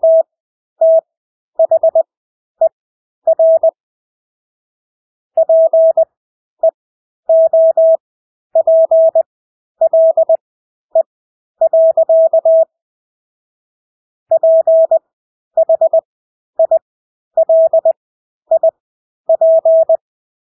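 Morse code practice tone: a single steady pitch keyed on and off in dots and dashes at 20 words per minute, with widened Farnsworth spacing between characters and longer pauses between words.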